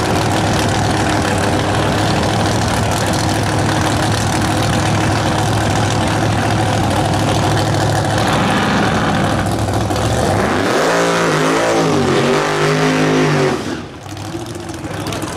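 Drag-race muscle car engines (1969 Chevrolet Chevelles) idling loudly and steadily, then revved several times about ten seconds in, the pitch climbing and falling with each rev. Near the end the sound drops off sharply.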